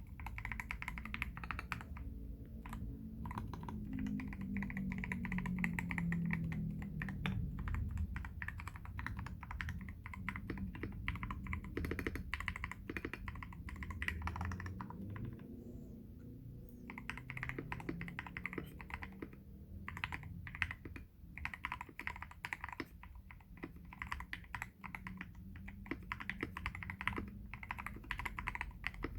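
Typing on a KBD67 Lite R3 mechanical keyboard with lubed Everglide Aqua King 62gf linear switches and XDA-profile PBT keycaps: fast runs of keystrokes, broken by a couple of short pauses.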